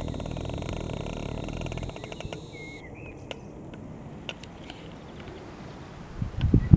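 An engine running with a fast, even beat that fades out about two seconds in, followed by small birds chirping now and then.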